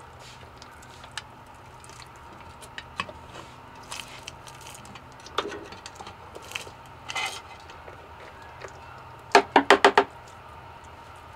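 Screwdriver scraping and clicking against a steel rear differential cover as the cover is pried loose and gear oil drains out, with a quick run of five sharp knocks near the end.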